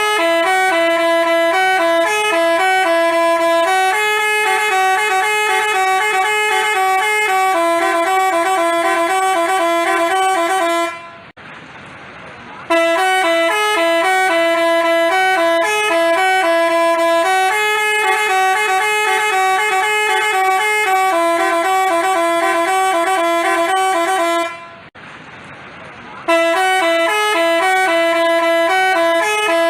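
Telolet 'basuri' multi-tone bus horn playing a stepping melody. It breaks off briefly twice, about eleven and twenty-five seconds in, then starts the tune again.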